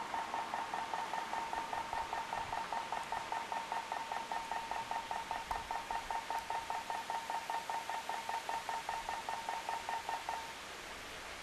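Rapid electronic beeping at one steady pitch, about five beeps a second, which stops abruptly near the end.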